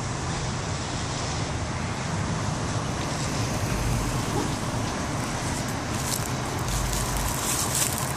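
Steady low rumble of vehicle engines and road traffic, with no distinct events.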